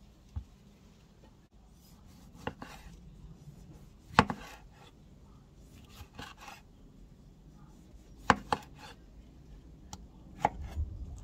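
Kitchen knife slicing tomatoes on a wooden cutting board: sharp, irregular knocks of the blade hitting the board, several in quick pairs, the loudest about four seconds in.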